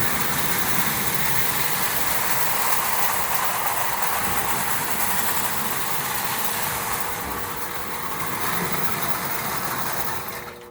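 Three vintage Marx Commodore Vanderbilt O gauge toy locomotives and their cars running together around a layout: a steady rattle and whir of motors and wheels on the track, which dies away near the end.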